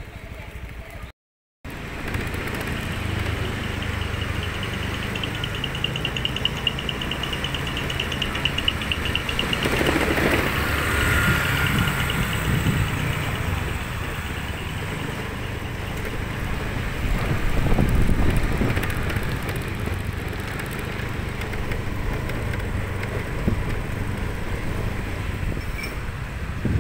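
Street traffic: motor vehicles and motorbikes running and passing, a steady low engine rumble with louder passes about ten seconds in and again near eighteen seconds. The sound cuts out briefly about a second in.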